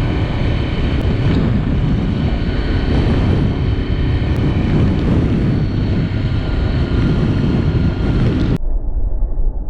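Honda VFR750's V4 engine running at a steady pace under way, mixed with wind rush on the helmet camera. About a second before the end the sound abruptly turns muffled, losing all its treble.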